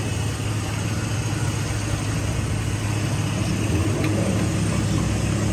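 A motor vehicle engine running steadily with a low hum, over the general noise of a busy street.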